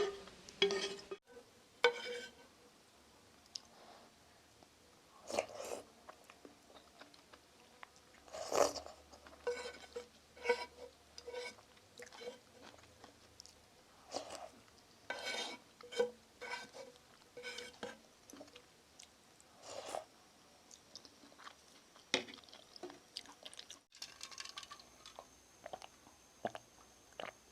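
Close-miked chewing of Shin Ramyun noodles with shrimp and egg, in irregular mouthfuls about a second apart, with occasional crunching.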